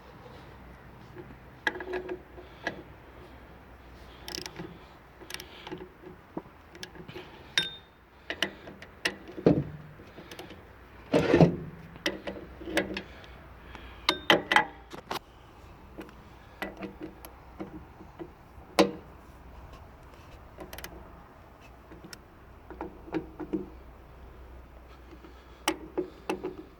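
Scattered metallic clicks, clanks and knocks of hand work on machinery, loudest in a cluster near the middle, over a faint steady low hum.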